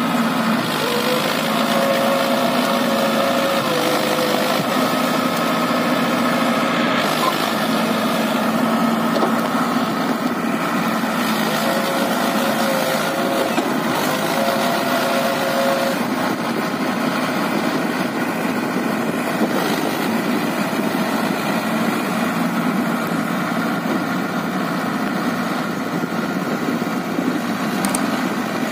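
Mahindra Arjun Ultra-1 555 DI tractor's diesel engine running steadily while the tractor is stuck in deep mud. A higher steady tone sounds over it twice, for a few seconds each.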